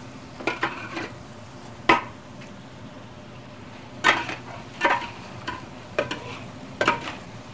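Beef and broccoli stir-frying in a hot wok over high heat as the oyster sauce thickens: a steady sizzle under irregular clanks and scrapes of the spatula against the wok.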